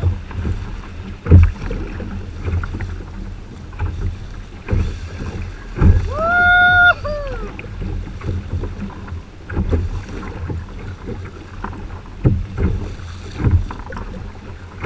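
Choppy sea slapping against a plastic kayak hull, with repeated low thumps as the boat rides the waves, and wind on the microphone. About six seconds in, a single held high cry lasts about a second and bends down at its end.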